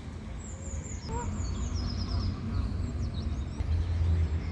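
Small birds chirping and trilling high up, with a short goose call about a second in, over a steady low rumble.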